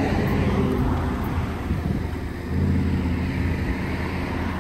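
A motor vehicle engine running at a steady low idle, its hum growing louder about two and a half seconds in.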